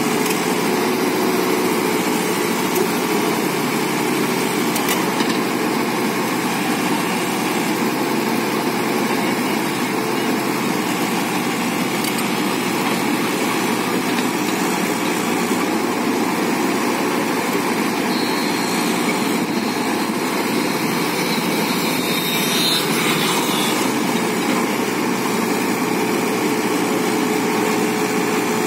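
JCB JS81 excavator's diesel engine running steadily at an even level.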